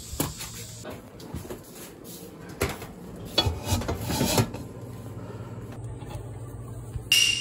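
A cooking utensil scraping and knocking against cookware in scattered short strokes, with a sharp ringing clink near the end.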